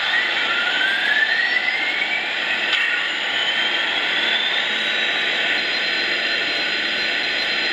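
Lionel Vision Line Union Pacific Big Boy O scale model locomotive's sound system playing its startup sequence: a steady hiss with the dynamo's whine rising in pitch for about five seconds, then holding steady.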